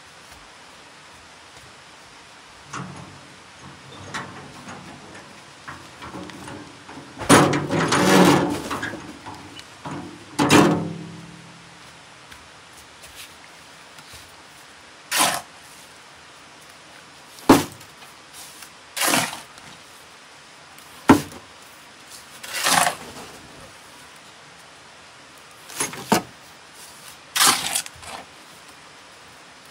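Bricks and hand tools being knocked and scraped during brick building work: a run of separate sharp knocks and scrapes, with a longer clattering stretch from about seven to eleven seconds in.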